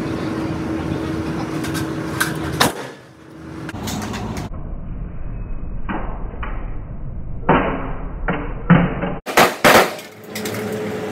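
Rifle fire from 5.56 mm M4 carbines on a firing line: separate sharp shots at uneven intervals, with a quicker run of shots near the end.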